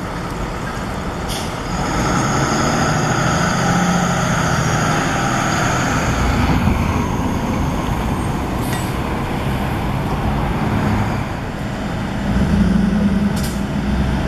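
Street traffic passing close: a box truck's engine and tyres go by, with a high squeal for a few seconds early on, then a pickup truck drives past, loudest near the end.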